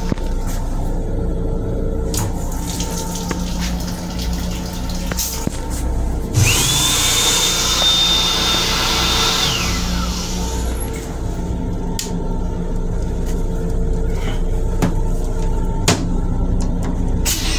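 Long Island Rail Road M7 railcar running, a steady low rumble with scattered knocks and rattles. About six seconds in, a restroom fixture's motor starts with a rush of noise. Its whine rises quickly to a steady high pitch, holds for about three seconds, then winds down.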